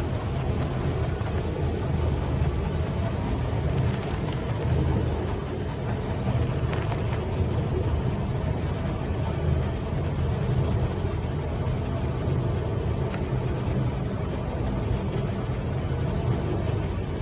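Semi-automatic pallet stretch-wrapping machine running: a steady low rumble with a few faint ticks.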